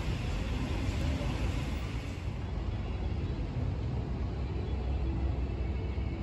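Outdoor city ambience: a steady low rumble with a hiss above it, which shifts slightly about two seconds in.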